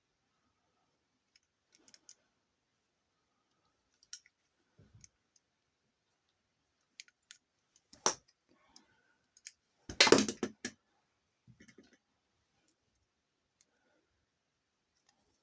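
Scattered clicks and clinks of small hard objects being handled, with a sharp knock about eight seconds in and a louder clatter about ten seconds in. No motor is running.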